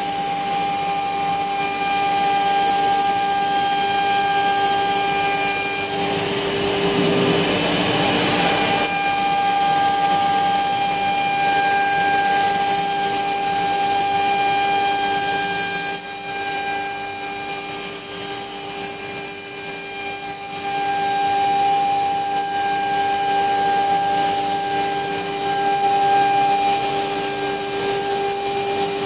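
COMAGRAV NOTUS 1600 CNC router routing 10 mm plywood: a steady high spindle whine over the rush of the dust extraction. A louder, rougher stretch of cutting noise comes about six seconds in and lasts some three seconds, and the sound drops a little for a few seconds past the middle.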